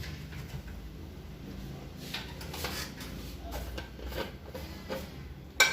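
Light clinks and knocks of kitchen utensils and containers being handled, ending in one sharp click, over a steady low hum.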